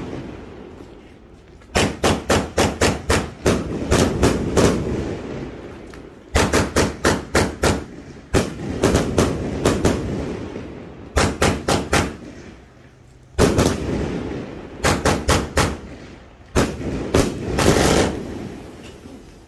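A 245-shot consumer firework cake firing: quick volleys of sharp shots, several a second, in clusters of about four to ten with short lulls between, each volley leaving an echoing rumble.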